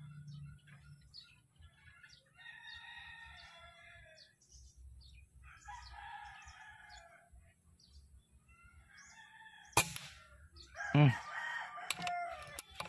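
Roosters crowing three times, then a single sharp shot from a PCP air rifle about ten seconds in. A loud short call follows a second later, then a few clicks.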